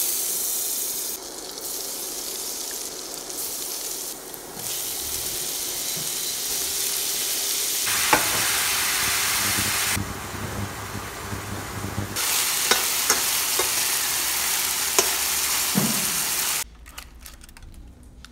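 Butter sizzling in a stainless steel frying pan, then shimeji mushrooms and garlic frying in the butter, stirred with a spatula that taps the pan a few times. The sizzle stops abruptly near the end.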